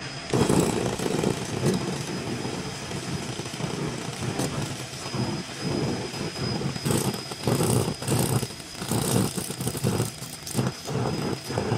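Handheld 200 W pulsed laser cleaner ablating black paint off a metal plate: a rough, uneven crackling noise that swells and dips as the beam sweeps, with a thin steady high whine alongside.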